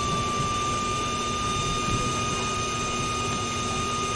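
Handheld induction heater running with its coil on a seized rear lower control arm bolt, heating it to free it. It gives a steady high-pitched whine that has settled at one pitch, over a low fan-like rumble.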